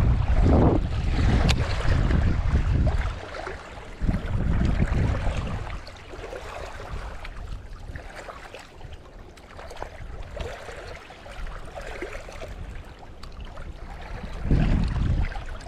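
Wind buffeting the microphone in heavy low gusts, strongest in the first few seconds, again around four seconds in and near the end, with a softer rushing in between. A single sharp click about a second and a half in.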